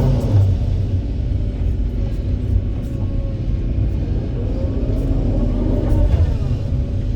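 Hydraulic excavator's diesel engine working under load: a steady low rumble, with a whine that rises and falls about five seconds in as the engine takes on hydraulic load.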